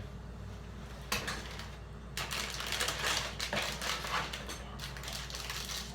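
Plastic snack packets crinkling and rustling as they are rummaged through in a box, a single crackle about a second in, then a dense run of irregular crinkles from about two seconds in.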